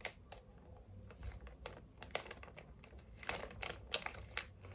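Faint handling noise: irregular light clicks and crinkles, with a few sharper ticks in the second half.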